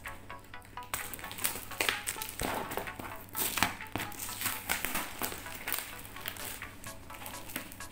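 Plastic wrapping on a cardboard parcel crinkling and crackling in irregular bursts as it is cut and pulled open by hand.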